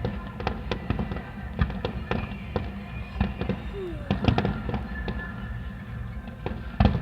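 Fireworks display going off: a dense run of rapid crackling and popping bursts with heavier bangs among them, the loudest bang coming near the end.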